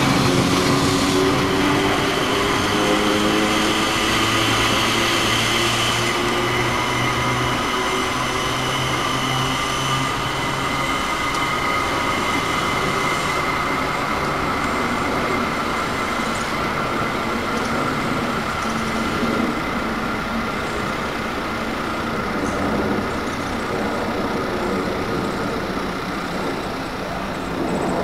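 1905 BC Electric interurban car running along the track, with a steady high-pitched whine over a continuous running noise; the whine fades in the last third.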